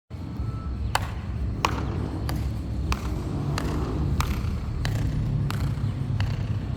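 Metal-tipped high heels striking a hard floor in a steady walking rhythm, about nine sharp clicks a step and a half per second apart, each with a short echo, over a steady low rumble.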